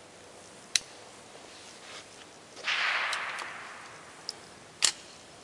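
.22 rifle shots on a range: a sharp crack about a second in and another near the end. Between them a duller shot rings out and its echo dies away over a second or so.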